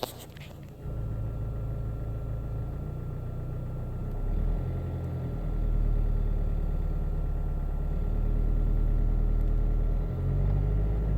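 Alfa Romeo 159's engine running at low revs, around 1000 to 1500 rpm, with a deep low rumble that swells and eases, loudest in the middle. This is the strange noise the owner hears only in that rev range, cause unknown.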